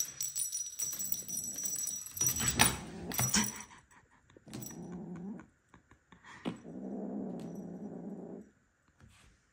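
A small jingle bell on a feather wand toy jingling and rattling as a kitten pounces on it and bats it about. Then the kitten growls low twice, once briefly and once for nearly two seconds, while it holds the toy.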